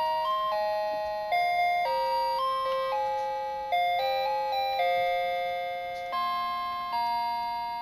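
Clock's electronic melody chime playing a tune in bell-like notes, two or three voices at once, each note struck and fading; a lower voice joins about six seconds in.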